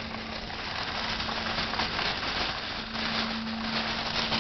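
Steady hum and rumble of a car moving slowly through a parking lot, heard from inside the cabin, with an even low tone and some crackly rustle.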